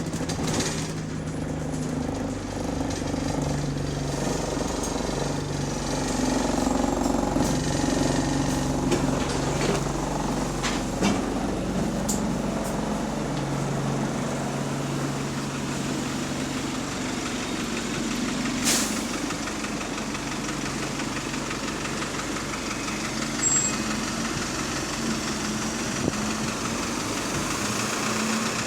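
A bus's diesel engine running, heard from on board, its low note shifting as the bus moves on and slows, with a brief sharp burst a little past the middle. The engine is one that the uploader says has a rod knock.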